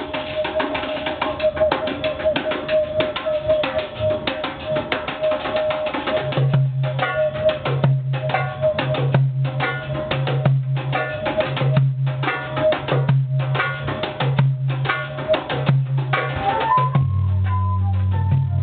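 World-music band jamming: a fast hand-drum rhythm over a held tone. A deep bass line joins about six seconds in, and near the end a note rises and settles into a held higher pitch.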